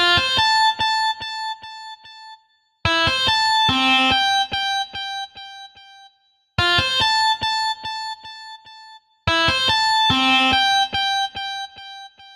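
A phone ringtone melody played as synthesized MIDI notes: a quick run of notes ending on a held note that rings out. The phrase sounds four times with a short silence between each, and two slightly different versions alternate.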